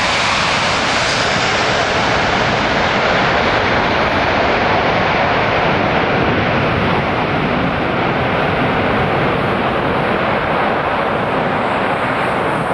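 Airbus A380's four jet engines giving a loud, steady rushing roar as the airliner rolls out along the runway after touchdown. The sound eases slightly toward the end as the aircraft draws away.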